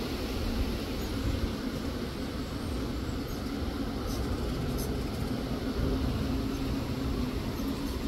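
Wind buffeting the microphone: an uneven low rumble over a steady hiss.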